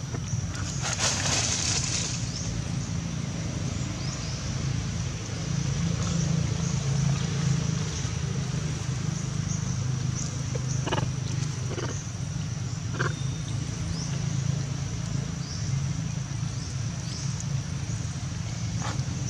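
Steady outdoor background: a constant low rumble with a thin, high, steady whine above it, a few faint short chirps, and a handful of soft clicks around the middle and near the end.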